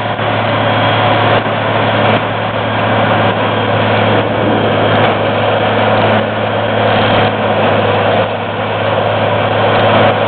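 Vermeer HG6000 horizontal grinder working under load as it grinds yard waste: a loud, steady mechanical din with a deep constant hum from its large diesel engine.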